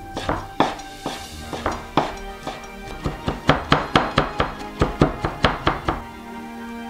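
Chef's knife chopping cilantro on a bamboo cutting board: a run of sharp knocks, sparse at first, then quicker at about four a second, stopping shortly before the end.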